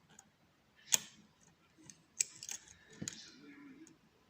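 Metal clicks of a lock pick working the pins of a Eurospec MP5 euro cylinder: one sharp click about a second in, then a cluster of clicks with light scraping around two to three seconds in.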